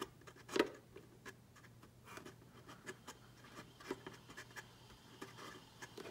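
Faint handling noises: light scratching and rubbing with scattered small knocks, the loudest a little over half a second in, as small cut plugs are pushed into place in an ATV's air box. A faint steady hum runs underneath.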